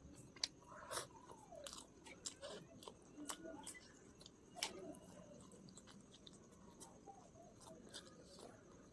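A person chewing and biting a mouthful of chicken biryani close to the microphone: a string of soft, irregular mouth clicks and chews, busiest in the first half.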